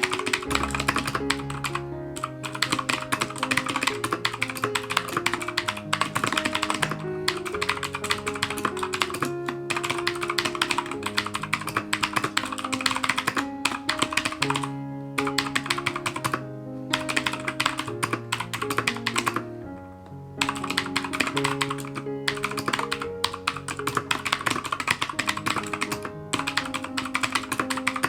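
Fast typing on a Keychron K2 mechanical keyboard with Gateron Blue clicky switches, a dense run of sharp key clicks that stops briefly several times, longest about twenty seconds in. Background music with a melody plays underneath.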